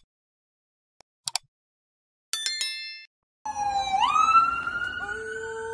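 Two mouse clicks and a bright notification chime from a like-and-subscribe animation. Then an ambulance siren comes in, sweeping up in pitch about four seconds in and holding a high wail, with a second steadier tone joining near the end.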